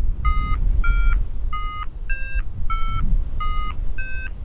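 Paragliding variometer beeping in short tones about one and a half times a second, the pitch shifting a little from beep to beep, signalling that the glider is climbing in a thermal. Wind rushes steadily on the microphone underneath.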